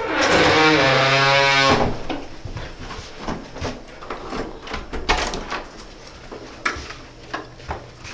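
A door swinging on its hinges with a long creak that slides down in pitch and then holds for about two seconds, followed by light scattered knocks and clicks.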